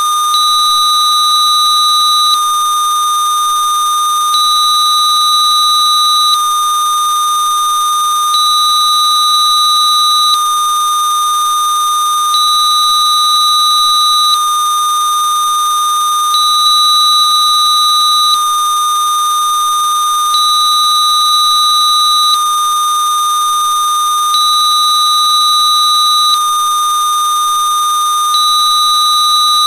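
Steady electronic sine tone at 1217.5 Hz, a Rife-style therapy frequency made by tone-generator software. It sounds with fainter higher tones, one of which switches on and off every two seconds.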